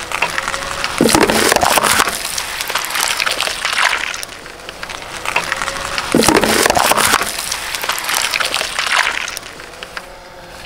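Cardboard Hugo Boss 'The Scent' perfume gift box crunching and crackling as a car tyre rolls over it on gritty asphalt, heard twice: about a second in and again about six seconds in.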